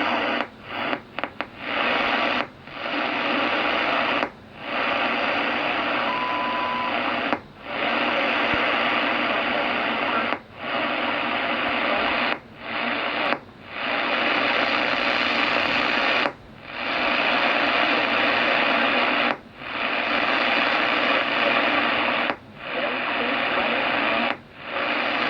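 HF radio receiver hiss broken by irregular pops, each leaving a short dip in the noise, about a dozen in all. The popping is radio-frequency interference from a loose aluminium wire arcing in a back-stab outlet connector. A brief steady tone cuts in about six seconds in.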